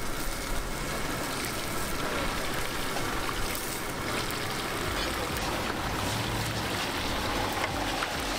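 Hot oil sizzling and bubbling steadily in a wok as an egg-and-seafood omelette deep-fries over a gas burner.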